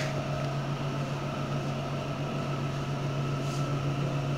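Steady low hum with a faint even hiss, unchanging throughout; no clinks or sizzling stand out.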